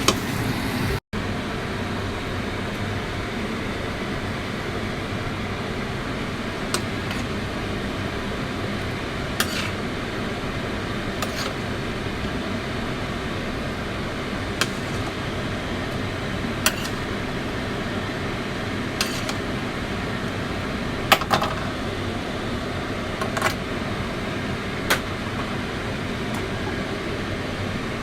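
Steady whir of a kitchen fan, with a sharp click every couple of seconds.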